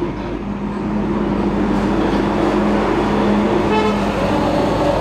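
Road traffic: a motor vehicle's engine running steadily, with a brief horn toot about four seconds in.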